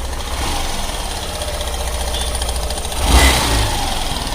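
Hero Super Splendor BS6's 125 cc single-cylinder engine running with a loud timing chain rattle, briefly louder about three seconds in. The rattle comes from a timing chain that is very loose.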